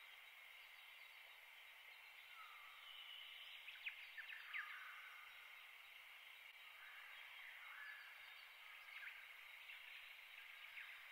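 Near silence, with faint short high chirps throughout and a few soft ticks about four seconds in.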